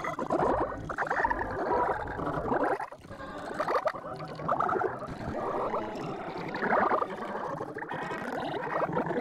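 Cartoon soundtrack garbled by stacked audio effects into a warbling, smeared stream with little in the high range. It dips briefly about three seconds in.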